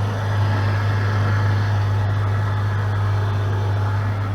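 Jeep Grand Cherokee engine idling: a steady low drone with no change in speed.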